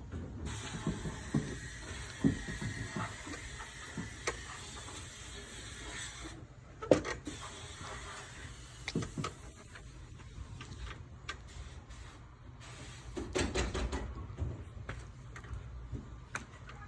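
Sandblast cabinet's blast gun hissing with compressed air in several long bursts, with scattered knocks and clicks of the part being handled inside the cabinet. The abrasive sand is worn out and is not blasting well.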